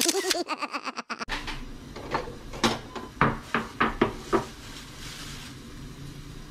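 A short sound effect with a wobbling pitch, lasting about a second, then about eight clinks and knocks of bowls being handled at the kitchen sink.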